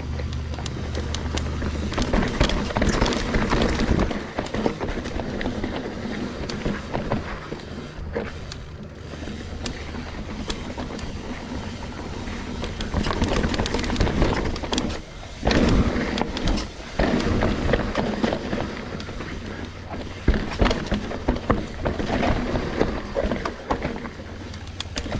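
Trek Slash full-suspension mountain bike riding down a dirt trail: wind rushing over the GoPro microphone and tyre noise, broken by runs of sharp knocks and rattles as the bike hits bumps and rocks.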